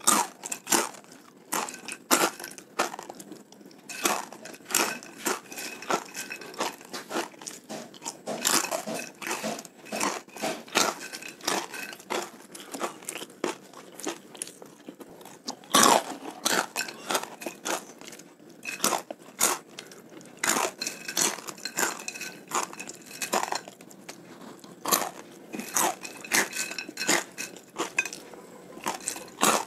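Crispy fried macaroni snack (Bon Cabe Makaroni Krispi) being bitten and chewed, a steady run of brittle crunches with a louder crunch about halfway through.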